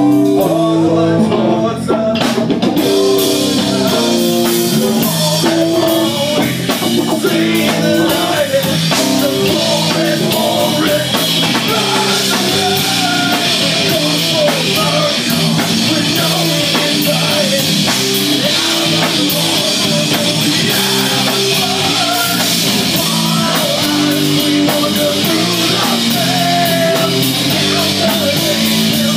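Live rock band playing loud: electric guitar, bass guitar and a drum kit, with a male vocalist singing into a microphone. The drums and cymbals come in about two and a half seconds in.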